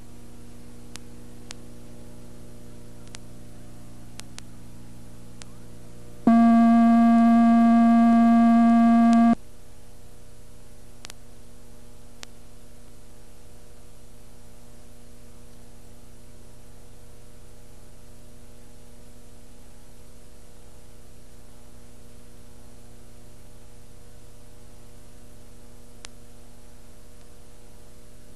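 Steady electrical mains hum with a few faint clicks, broken about six seconds in by a loud buzzing tone that lasts about three seconds and cuts off sharply.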